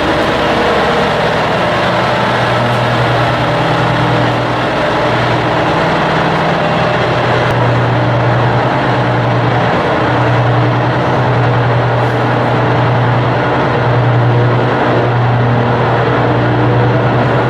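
A ship's large diesel engine running steadily: a loud, even drone with a low hum that swells and eases slightly now and then.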